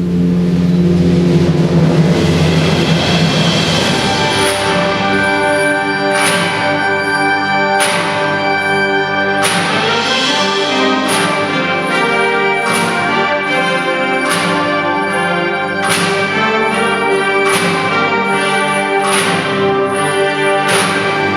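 Wind band playing held brass and woodwind chords. From about four seconds in, struck percussion accents land about every one and a half seconds.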